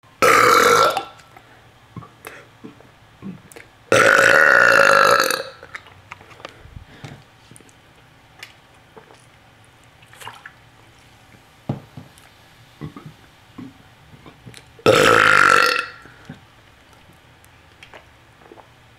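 A person burping loudly three times: a short burp at the start, a longer one of about a second and a half about four seconds in, and another short one about fifteen seconds in. Faint clicks and small noises lie between the burps.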